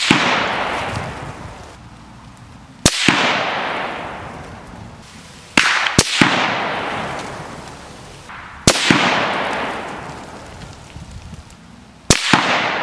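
Five rifle shots from a 6mm Creedmoor Ruger Precision Rifle, about three seconds apart. Each is heard from beside the target as a sharp double crack, followed by a long rolling echo that dies away.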